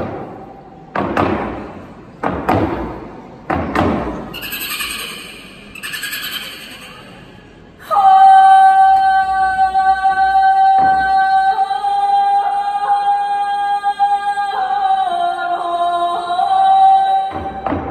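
A shaman's frame drum struck four single beats in the first few seconds, each hit booming and dying away, followed by two hissing sounds. From about eight seconds in, a woman's voice holds one long high note, shifting pitch slightly near the end.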